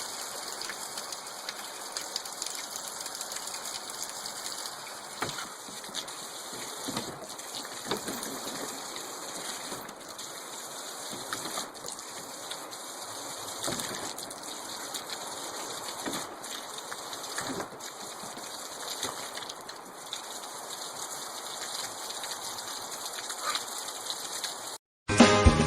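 Water spraying and splattering: a steady hiss with many small splashes scattered through it. It cuts off abruptly near the end, and music begins.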